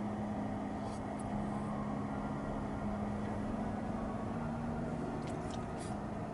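Steady hum and road noise of a moving car heard from inside, with a few faint clicks about five to six seconds in.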